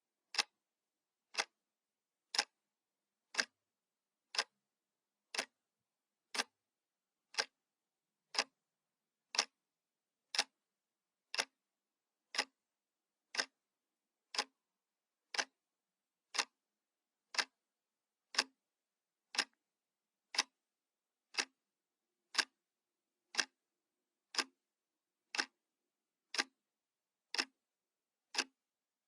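Analog clock ticking steadily, one sharp tick each second, with silence between the ticks.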